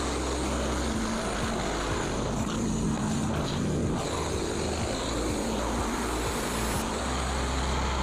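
Frontier OS27 band sawmill running, its Briggs & Stratton XR gasoline engine driving the band blade through an ash cant to saw off boards. The engine note wavers between about one and four seconds in, then runs steady again.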